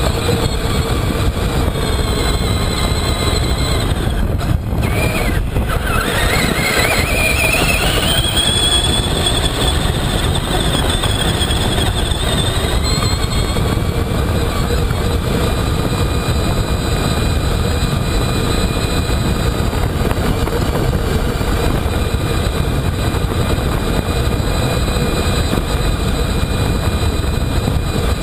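Traxxas Summit RC truck's electric motor and gears whining as it drives across soft beach sand, heard from a camera riding on the truck, over a steady rushing noise. About six seconds in, the whine rises in pitch as the truck speeds up.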